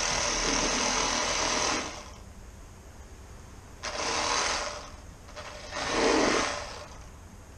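Cordless reciprocating saw fitted with a FilletZall fillet blade, running while filleting fish: a run of about two seconds, then two shorter runs about four and six seconds in.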